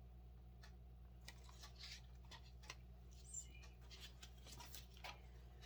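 Faint handling noises: a scattering of light clicks and scratchy scrapes from about a second in, over a steady low hum.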